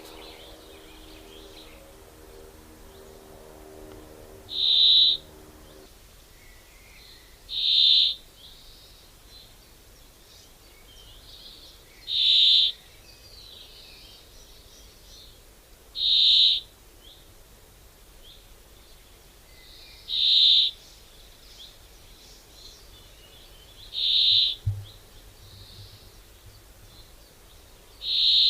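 A bird repeating one short, high call about every four seconds, seven times, with fainter bird chirps in between. A low steady hum sounds under the first six seconds, and a brief low thud comes near the end.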